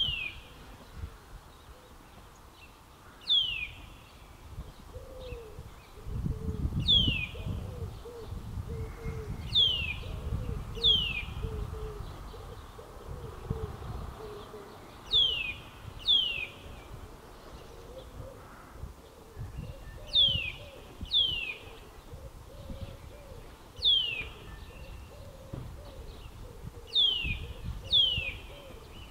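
Eurasian nuthatch calling: short, sharp, downward-sliding notes, singly or in quick pairs every few seconds, about a dozen in all.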